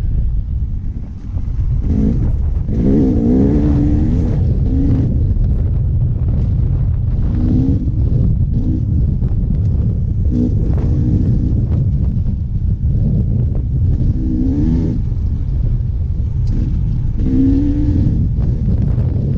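Dirt bike engine revving up and down in repeated bursts on a trail ride, over a heavy steady rumble of wind and engine noise on the microphone.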